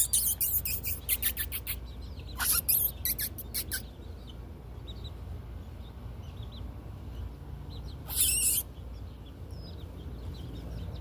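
A small flock of miniature chickens giving faint high chirps, with a run of quick clicks and rustles in the first few seconds and one short, louder high-pitched sound about eight seconds in.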